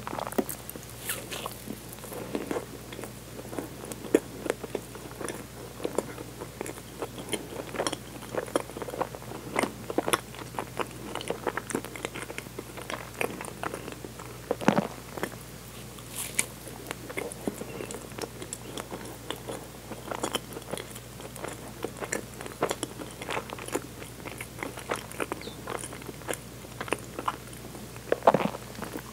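Close-miked chewing and biting of a soft dorayaki: a string of small mouth clicks throughout, with a few louder bites.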